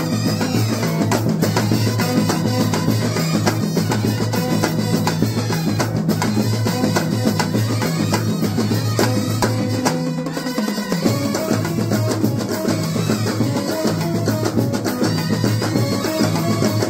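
Kerala bandset, a street band, playing a tune at full volume with a pounding drum beat over a steady bass line. The bass drops out briefly about ten seconds in.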